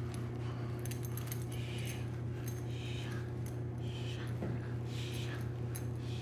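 A Labrador retriever puppy being lifted and handled: jingling and clicking from its collar, with several short, high squeaky whimpers, over a steady low hum.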